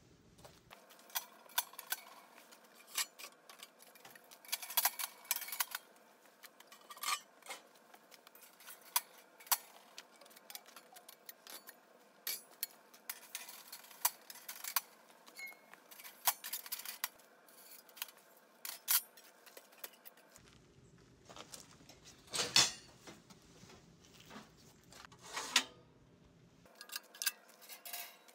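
Irregular metallic clinks and clanks of a handmade steel camping stove's parts being handled: the lid and a rack of metal tubes knocking against the stove body as they are lifted out and set down.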